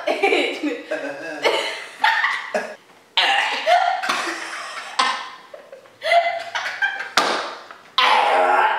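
A young man and a young woman laughing hard in repeated loud bursts, with some coughing mixed in.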